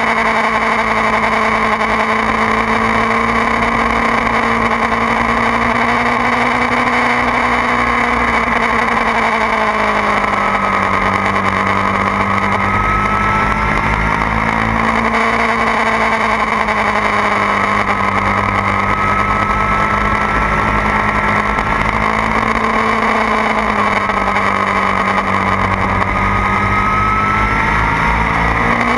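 2009 Kawasaki ZX-6R's inline-four engine running hard at track speed, its note holding mostly steady with the pitch sagging and climbing a little a few times, mixed with wind rush over the tail-mounted camera.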